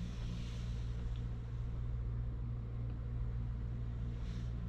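Steady low electrical or mechanical hum with a few fixed low tones, unchanging throughout.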